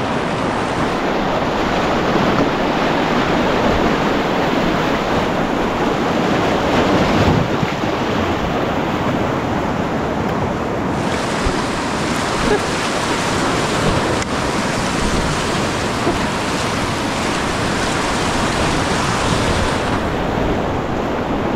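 Whitewater of a shallow river rapid rushing steadily and loudly around a packraft as it runs down.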